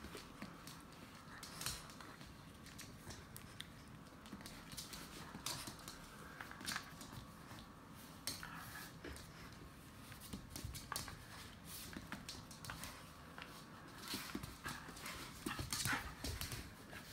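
A border terrier tugging on a rope toy, its claws making faint, irregular clicks and taps on a laminate floor as it shifts and pulls.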